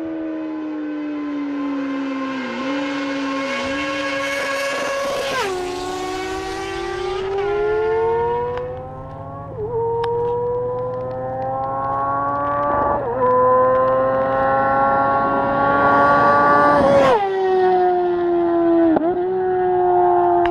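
Motorcycle engine and exhaust heard from on board, accelerating up through the gears. The pitch climbs steadily and drops sharply at each upshift, four or five times.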